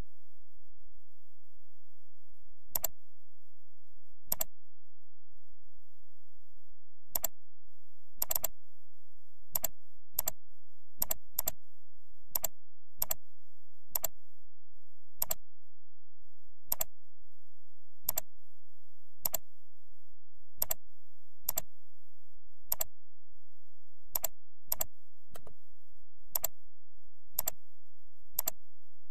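Computer mouse button clicking, short sharp clicks about every one to two seconds at irregular intervals, some in quick pairs like double-clicks. A faint steady high whine sits underneath.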